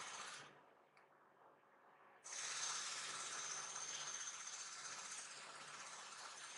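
Steady hissing background noise with a faint high whine. It almost drops away about half a second in and comes back suddenly just after two seconds.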